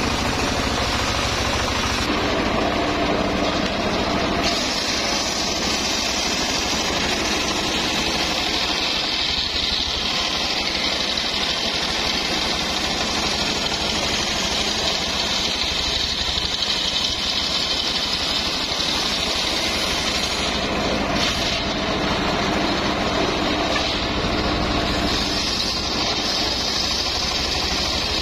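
Engine-driven homemade circular saw bench running steadily while a teak log is fed through the blade, ripping it lengthwise. Over the engine's drone there is a high whine from the cut; it strengthens about four seconds in, eases around twenty-one seconds, and returns near the end.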